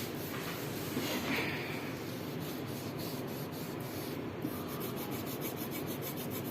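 Hand rubbing on the glazed surface of a ceramic plate, scrubbing off stains, turning into quick, even back-and-forth strokes of about five a second in the second half.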